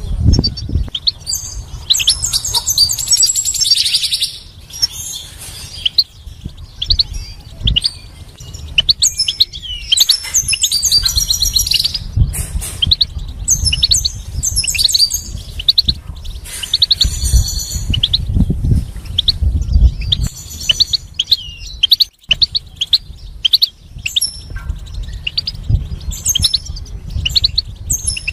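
European goldfinch singing: fast runs of twittering, trilling notes and tinkling chirps, coming in bursts a few seconds long with short gaps between.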